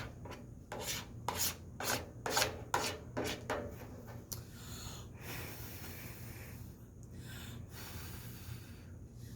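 A spoon stirring and scraping through cooked microwave grits in a bowl, about two strokes a second for the first four seconds or so. Then a steady hiss, broken by a few brief gaps.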